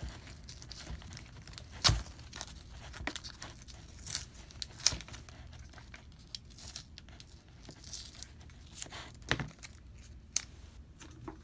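Blue painter's tape being peeled and pulled off a mask's faux-leather straps: irregular ripping and crinkling with a few sharp snaps, the loudest about two seconds in.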